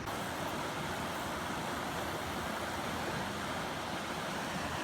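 Steady rush of water over a small waterfall and rapids on a creek, an even hiss with no breaks.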